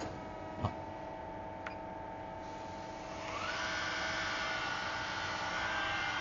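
CNC lathe running during rough turning: a steady machine hum with one knock near the start. About three seconds in, a whine rises in pitch and then holds steady as the machine grows louder.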